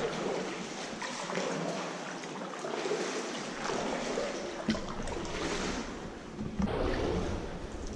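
Kayak paddle strokes, the blades dipping and splashing in still water at a slow, regular pace, inside a flooded factory hall with a concrete ceiling.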